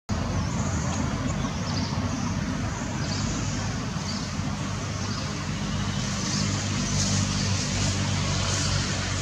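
Steady background rumble of road traffic, with a high hiss running over it.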